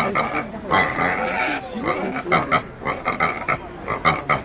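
Pigs grunting repeatedly as a boar mounts a sow during mating.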